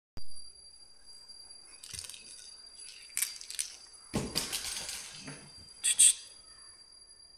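Quiet room with brief rustles and small handling noises and a few light clinks, the sharpest about six seconds in, over a faint steady high whine.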